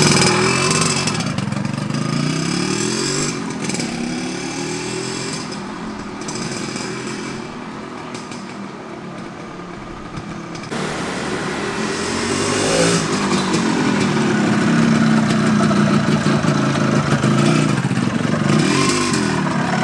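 Yamaha RZX 135 two-stroke motorcycle revving up through the gears as it pulls away and fades down the lane, then coming back louder with revs rising and falling, on a test ride after its engine was reassembled.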